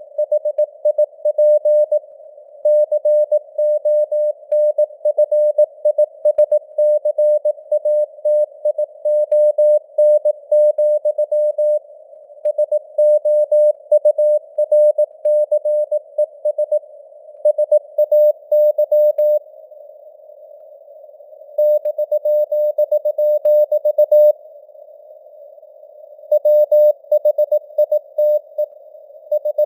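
Morse code (CW) keyed at 18 words per minute as a single mid-pitched beeping tone, sitting in simulated radio noise with the signal strength fading up and down. The keying breaks off twice for about two seconds.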